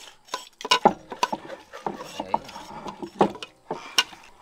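Irregular sharp knocks and clicks of hard objects, several a second, with the loudest strikes about a second in and again after three seconds.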